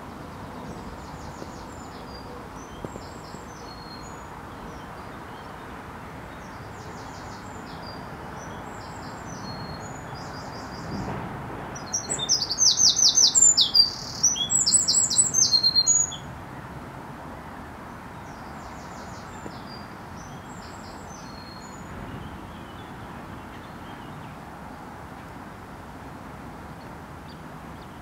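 Small birds calling in high, rapid trilled phrases, with a louder, closer run of calls for a few seconds midway, over a steady outdoor hiss.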